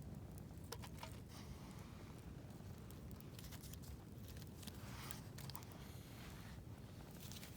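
Wood fire crackling: scattered short pops and snaps over a low steady rumble.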